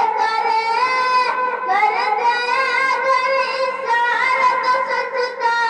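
A boy singing a naat into a microphone, holding long notes that glide and bend slowly from pitch to pitch.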